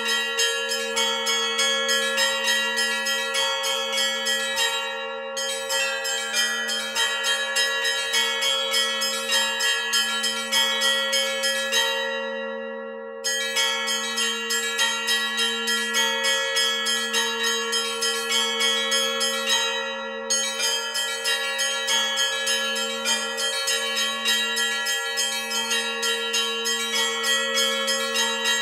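Russian-style church bell peal (zvon) on a monastery belfry's set of bells: small treble bells struck in a quick steady rhythm over the sustained ringing of larger, lower bells. The small bells stop briefly three times while the low bells ring on.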